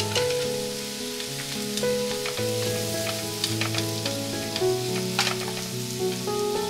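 Chicken thighs, onions and shimeji mushrooms sizzling in butter in a frying pan while flour is stirred into the onions, with a few sharp clicks of the utensil against the pan. Background music with slow held notes plays throughout.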